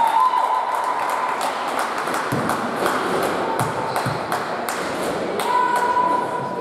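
Basketball game play on a hall court: a basketball bouncing, a run of knocks about two or three a second, with short high squeaks on the court near the start and again near the end, over the general noise of the hall.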